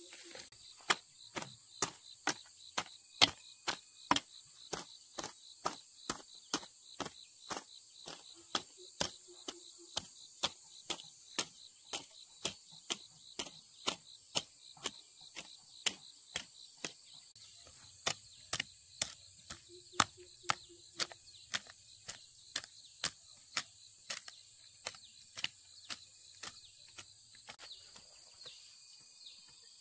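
A tool striking over and over at about two blows a second, with a short pause about two-thirds of the way through, stopping near the end. A steady high-pitched insect buzz runs underneath.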